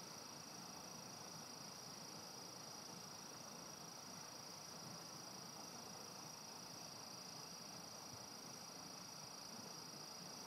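Faint, steady high-pitched chirring of crickets.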